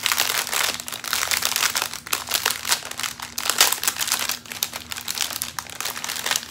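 Plastic wrap crinkling in quick, irregular crackles as hands work open a plastic-wrapped bundle of diamond-painting drill bags.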